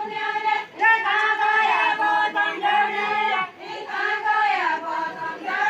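A group of voices singing a Deuda folk song together, in drawn-out sung phrases with brief breaks between them.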